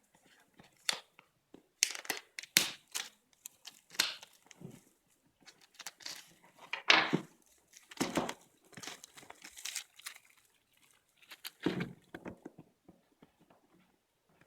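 Packaging being handled while a power supply is unboxed: irregular crinkling and rustling in short bursts with brief quiet gaps, loudest in the middle.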